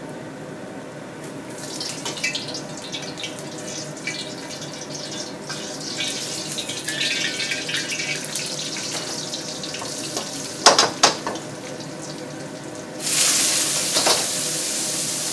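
Garlic crackling and spitting in hot oil in a wok, with two sharp knocks of the metal ladle on the wok about eleven seconds in. About thirteen seconds in, a loud steady hiss starts as the wet boiled Brussels sprouts and carrots drop into the hot wok and throw up steam.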